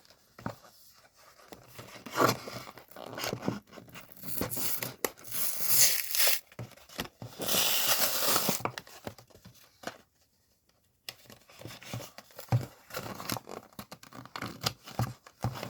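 Pokémon card blister pack being torn and crinkled open with some struggle, the plastic and card rustling and tearing in uneven bursts. After a brief silence about ten seconds in, scattered scratching and clicking as it is worked further open.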